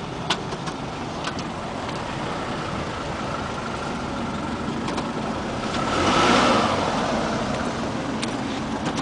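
Toyota RAV4 running and moving slowly forward and back, its engine swelling about two-thirds of the way through, with a few sharp metal clicks from the front end: the clicking that appeared after the front axle was replaced.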